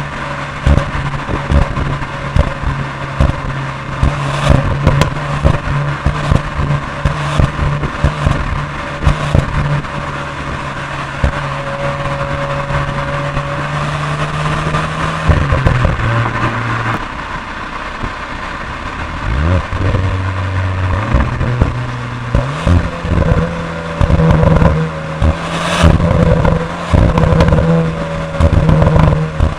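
Cupra Leon ST VZ's 2.0 TSI turbocharged four-cylinder engine running under way at steady revs. The revs drop about halfway through, then climb back a few seconds later and hold steady again. Frequent short clicks and knocks sound throughout.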